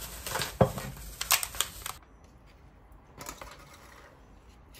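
Cardboard takeout box and its paper and foil lining being handled: crinkling and sharp clicks as the lid is opened. After about two seconds it goes fairly quiet, with one brief faint rustle.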